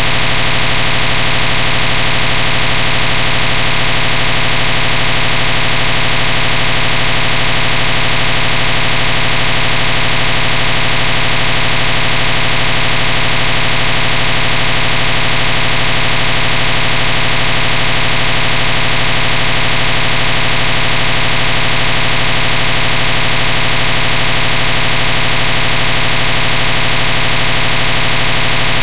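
Loud, unchanging electronic buzz.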